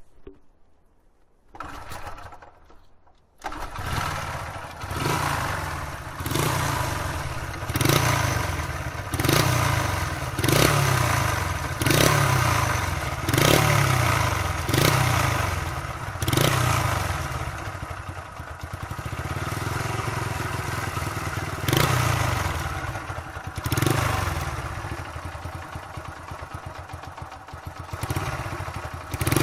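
Honda Little Cub's 50 cc single-cylinder engine catching about three and a half seconds in, then revved in repeated blips about every second and a half, each dropping back, before running more steadily over the last few seconds.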